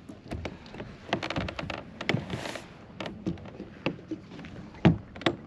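Irregular knocks, clicks and clatter of gear and a caught bass being handled on a fishing kayak, with one louder knock near the end.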